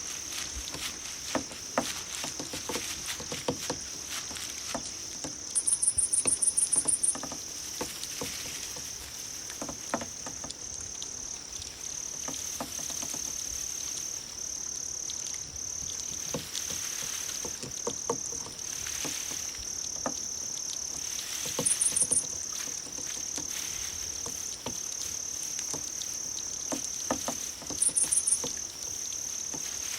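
Grass insects calling: a steady high, cricket-like trill with brief regular breaks. Three times it is joined by a louder, higher, faster pulsing call from another insect, the first lasting about a second and a half. Scattered soft clicks and taps sit underneath.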